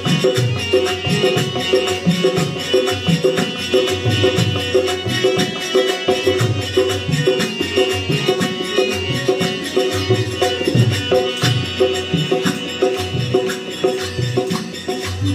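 Harmonium and dholak playing an instrumental passage of a bhajan: held harmonium chords over a quick, steady dholak rhythm with deep bass strokes.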